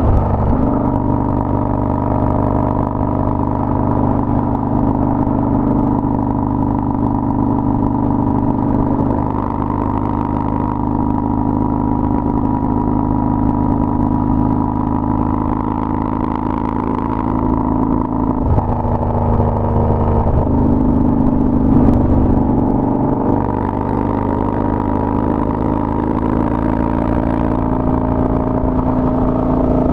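Harley-Davidson Dyna Street Bob's V-twin through a Bassani Road Rage 2-into-1 exhaust, cruising steadily at freeway speed. About two-thirds of the way through, the engine note drops for a couple of seconds, then comes back up.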